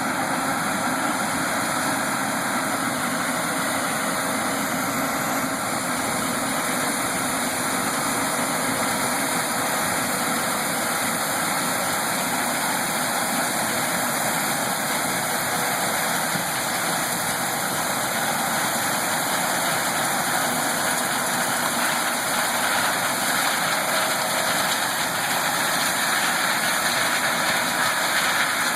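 Combine harvester running steadily as it harvests corn.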